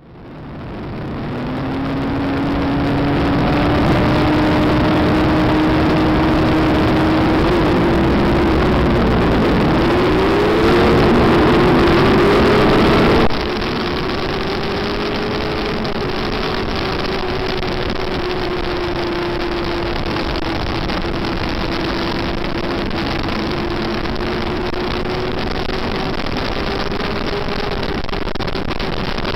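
Onboard sound of a Yamaha FZR400 inline-four race bike running hard, its engine pitch rising and falling with the throttle under a heavy rush of wind. Other bikes' engines join in with crossing pitches for a few seconds before the sound drops abruptly in level about thirteen seconds in.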